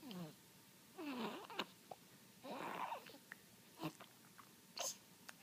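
Baby making babbling, squealing vocal noises in three separate bursts, the pitch bending and sliding down, followed by a couple of short mouth clicks or smacks.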